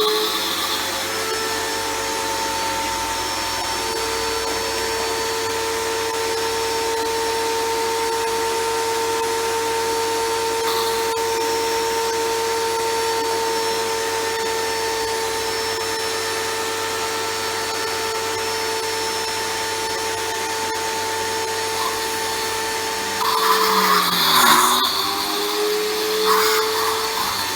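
Titan TTB66PRW electric pressure washer running, its motor pump giving a steady high whine. Near the end the spray hiss grows louder and uneven, and the whine dips in pitch and recovers twice as the load changes.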